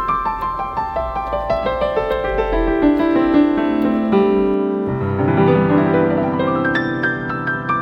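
Background piano music: quick runs of notes falling from high to low, settling into lower sustained chords after about five seconds.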